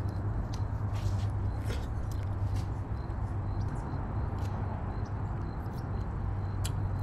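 Scattered small clicks and scrapes of a plastic spoon working a balut (fertilised duck egg) in its shell, with eating sounds, over a steady low rumble.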